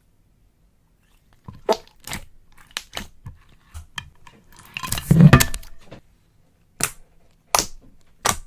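Slime being handled: a series of sharp pops and crackles, with a louder squelching burst about five seconds in.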